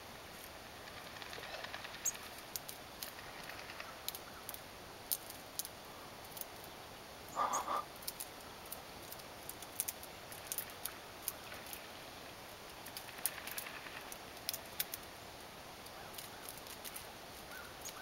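Black-capped chickadee pecking at and tearing dry reed stems: a scattered run of small sharp clicks and crackles, with one brief louder burst about seven and a half seconds in.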